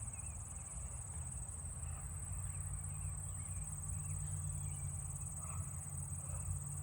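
Steady, unbroken high-pitched insect drone, with a low rumble underneath and a few faint chirps.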